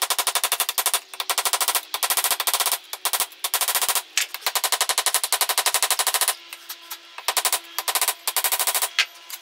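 Hand hammer striking red-hot san mai Damascus steel on a steel block anvil in fast runs of blows broken by short pauses, each blow ringing. The blows come more sparsely near the end.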